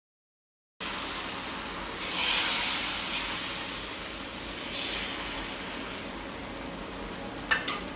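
Thin rava dosa batter sizzling as it is poured onto a hot, oiled dosa pan. The sizzle starts abruptly about a second in, swells, then slowly fades. Two sharp clicks come near the end.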